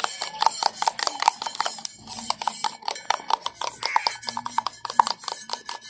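A steel spoon beats raw eggs in a stainless steel tumbler, clinking quickly and evenly against the metal sides at several strikes a second.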